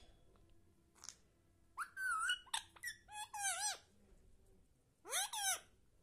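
Indian ringneck parrot making short, pitched, chattering calls: a run of several about two seconds in, then one more near the end.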